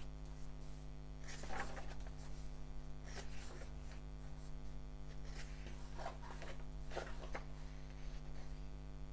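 Pages of a paperback comic book being turned by hand: several brief paper rustles and swishes, over a steady low electrical hum.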